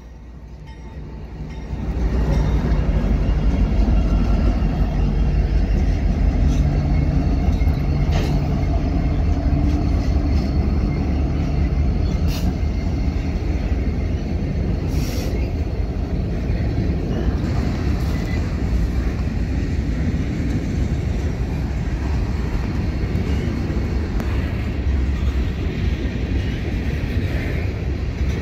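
A very slow BNSF freight train passing close by: the diesel-electric locomotives' engines rumble past, growing louder about two seconds in. They are followed by a steady low rumble of covered grain hopper cars rolling on the rails, with a few brief sharp metallic sounds.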